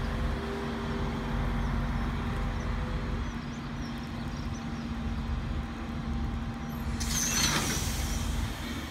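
Diesel-electric freight locomotive of the class 6400 running with a steady engine hum while its train of loaded ballast hopper wagons rolls past with a low rumble. About seven seconds in, a short loud hiss rises over it and fades again.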